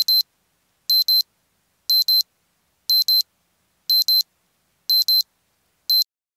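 Digital alarm-clock beeping: a high-pitched electronic tone sounding in quick double beeps about once a second, seven times, with the last one single.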